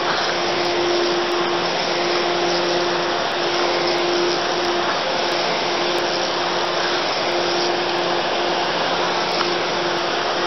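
Steady rush of water pouring through the open spillway gates of a hydroelectric dam, with a steady hum running through it.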